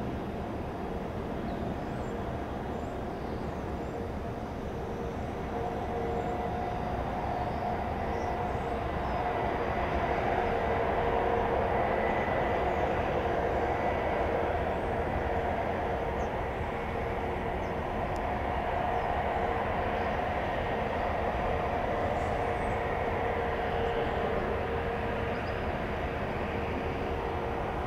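Ilyushin Il-76TD-90 freighter's four PS-90A turbofans running at taxi power as the jet turns and rolls slowly. A steady jet rumble with a held whine, swelling a little about ten seconds in.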